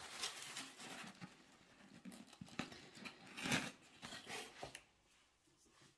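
Faint, irregular rustles and light taps of hands handling small objects, a little louder about three and a half seconds in.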